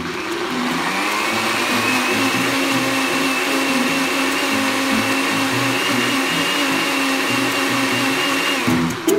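Power Rocket 1000 W countertop blender running steadily, puréeing leafy greens into a smooth paste. Its high motor whine rises slightly about a second in, holds steady, and cuts off near the end.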